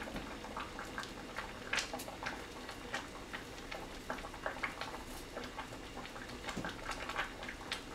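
A pot of corn at a boil on a gas stove: faint, irregular popping and ticking of bubbles, several a second, over a low hiss.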